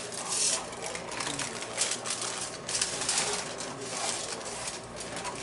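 Aluminium foil crinkling and rustling in irregular bursts as it is rolled tightly around a fish filling by hand.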